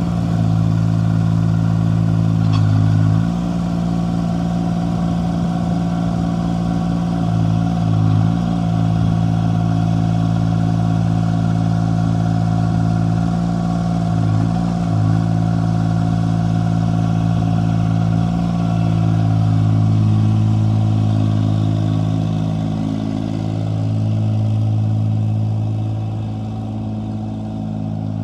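Terramite T6D backhoe engine running steadily, its note shifting briefly several times.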